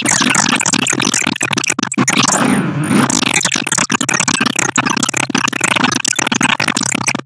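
Black MIDI playback: a noisy wall of densely stacked piano-roll notes, most of the keyboard sounding at once, with sweeping runs up and down the keys. It stops abruptly near the end.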